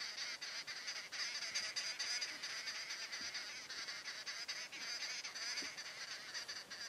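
A chorus of birds giving harsh, rapid, chattering calls without pause.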